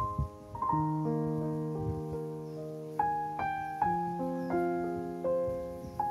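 Background piano music: a slow, gentle melody of struck notes, each fading away, over held low notes.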